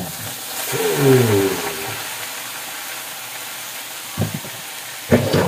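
Water spinach tipped into hot oil in a wok, sizzling and frying steadily, with a brief voice about a second in.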